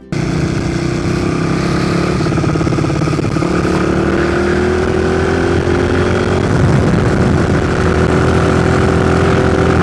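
Engine of a Chinese replica Honda Monkey minibike, a small single-cylinder four-stroke, running steadily as the bike rides along; its pitch climbs slowly from about halfway in as it gathers speed. The sound cuts in suddenly.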